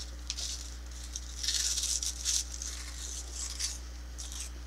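Soft crackly rustling and crunching of cheese curls being handled and eaten, loudest from about a second and a half to two and a half seconds in, over a steady low hum.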